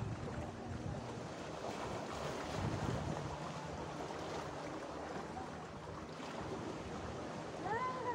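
Sea washing against a rocky shore, a steady surf hiss, with wind buffeting the microphone.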